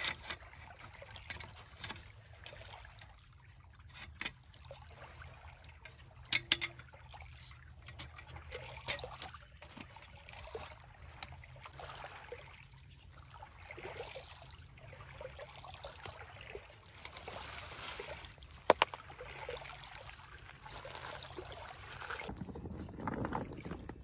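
Small waves lapping against a pebbly lakeshore, with scattered clicks and rustles as folding camp furniture is set up and sat in; two sharper clicks stand out, one about a quarter of the way in and one about three quarters in.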